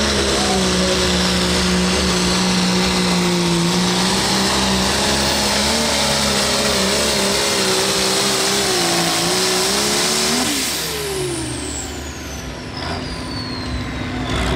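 Light limited super stock pulling tractor's turbocharged diesel engine running at full throttle while dragging the sled, its pitch wavering as the load comes on. About ten seconds in the engine is throttled back and winds down, and a high turbo whine falls away after it.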